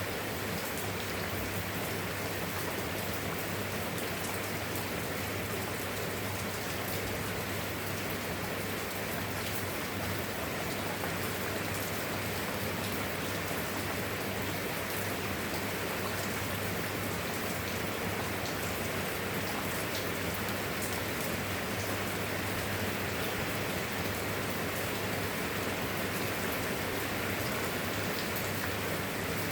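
Steady rain falling, with scattered drops ticking on a surface and a steady low hum underneath.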